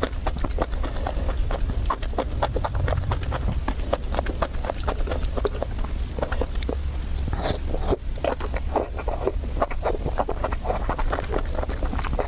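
Someone eating close to the microphone: a rapid, irregular run of wet chewing and mouth clicks, over a steady low hum.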